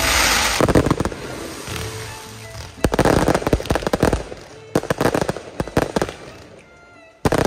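Aerial fireworks bursting overhead in waves of rapid, dense crackling, each wave lasting a second or so, with the sharpest burst near the end.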